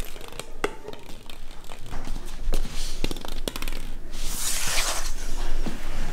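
Light hollow plastic balls tapping and knocking on a hardwood floor as a cat bats and paws at them, in scattered irregular clicks. A brief hiss about four seconds in.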